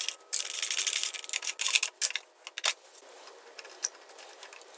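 Socket ratchet clicking rapidly as a carburetor mounting nut is turned, stopping about two and a half seconds in, followed by a few light metal clicks as the carburetor is handled.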